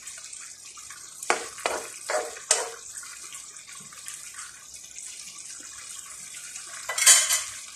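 Cabbage, potato and chicken stew simmering in a frying pan with a steady hiss. A spatula scrapes and knocks against the pan four times about a second in, and once more, louder, near the end.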